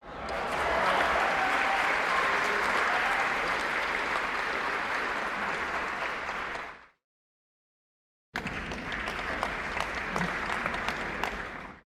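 Crowd applause from two separate recordings: a large crowd clapping with some voices cheering, fading out about seven seconds in; after a gap of dead silence, a second round of clapping with single claps standing out, cut off just before the end.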